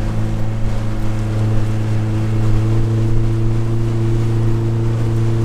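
Motor of a flat-bottom river jet boat running under throttle; its pitch steps up twice in the first second or so as the throttle is pushed forward to bring the boat up on plane, then holds steady, with water and wind noise beneath.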